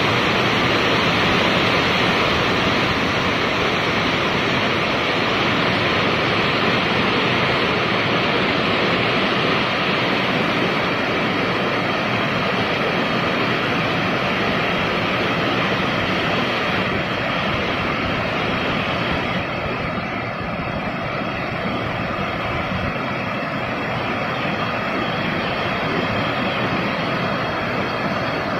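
Steady rain falling on rooftops, an even hiss that softens slightly about two-thirds of the way through.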